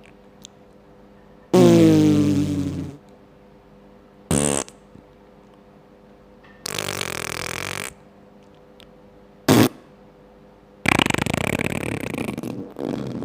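A series of five fart sound effects separated by short silences. The first, about a second and a half in, is long and falls in pitch. A short one and a longer, buzzier one follow, then a very short blip and a long, rattling one near the end.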